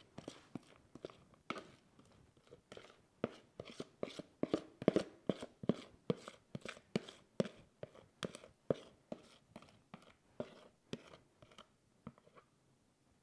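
A spoon scraping thick chocolate cake batter out of a mixing bowl into a springform pan: a quick run of short scrapes and taps, about three a second, that stops near the end.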